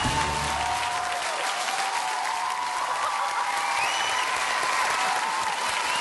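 A large theatre audience applauding, with scattered cheers; the low notes of the backing music stop about a second in.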